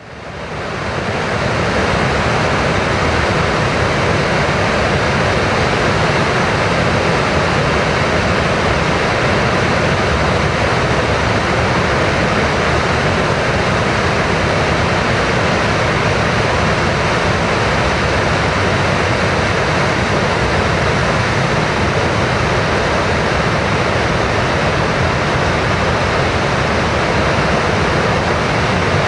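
Rushing water: a loud, steady roar that fades in over the first second or so.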